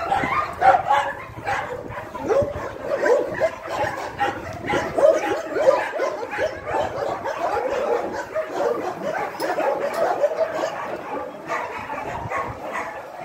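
Several dogs giving many short, overlapping calls in quick succession, a mix of barks, yips and whines.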